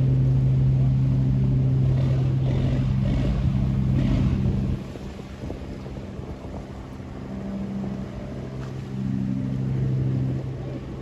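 Tugboat engine running with a steady low hum. It drops sharply in level a little under five seconds in, then swells again briefly near the end.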